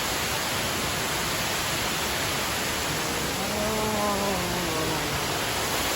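Steady rushing of a waterfall. About three and a half seconds in, a faint voice calls out briefly over it.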